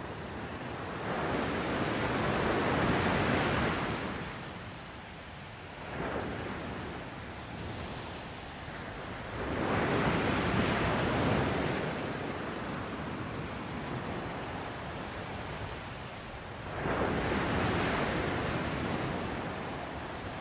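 Small waves breaking on a sandy beach and washing up the shore: three larger swells of surf several seconds apart, with a softer hiss of foam between them.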